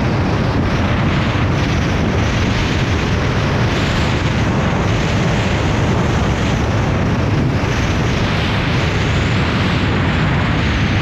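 Steady, loud wind rush buffeting a motorcycle-mounted camera microphone while riding at road speed, burying the bike's engine.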